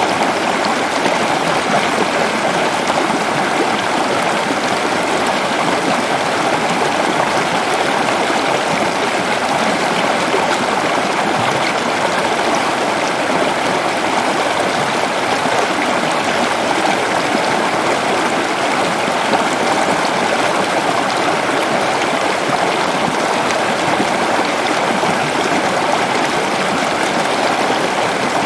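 A forest waterfall rushing steadily and loudly, an even roar of falling water with no breaks.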